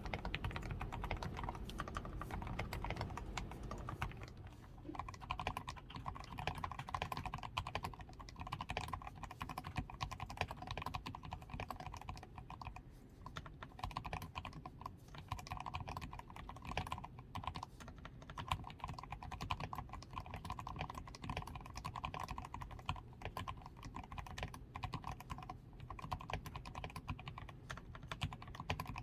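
Continuous fast typing on a DAREU A87 Pro mechanical keyboard with fully lubed switches, a PCB tape mod and XDA keycaps: a steady stream of dense keystroke clacks.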